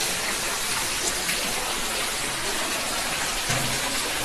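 Steady rush of water from an indoor waterfall cascading down a planted rock wall into a pool.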